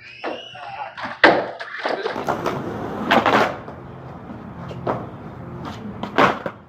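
Skateboard on concrete: a sharp clack of the board about a second in, then wheels rolling, with more clacks around three and six seconds in.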